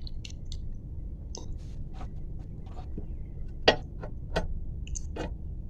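Scattered metallic clicks and clinks of steel parts being handled and fitted as a car's CV-joint half-shaft goes into the wheel hub, the sharpest click about two-thirds of the way in.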